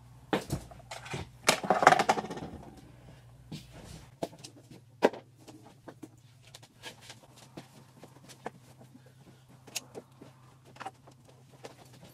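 Bags and small objects being handled and set down on a counter: a burst of rustling about two seconds in, then scattered knocks and clicks, over a steady low hum.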